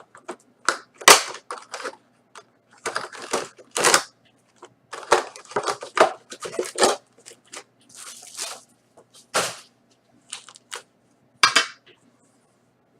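Packaging of a sealed trading-card box being torn and handled: irregular sharp crackles and rustles of plastic wrap and cardboard, in short scattered bursts.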